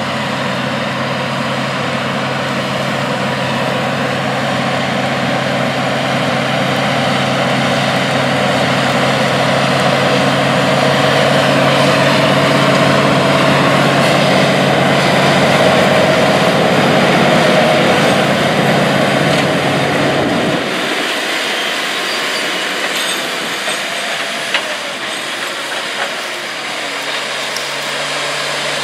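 Case IH Steiger Quadtrac tractor's 620 hp diesel engine running steadily under heavy load, pulling a deep ripper through drought-hardened ground, with rubber-track and tillage noise. About two-thirds of the way through, the deep engine note drops away and the sound turns thinner.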